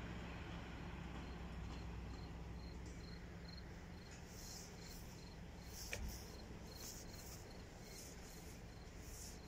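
Faint outdoor ambience: a low steady hum that weakens over the first few seconds, under a faint high chirp repeating evenly about three times a second, like an insect. A single short click about six seconds in.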